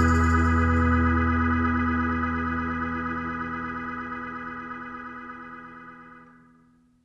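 Organ music: one held chord fading slowly away, stopping just before the end.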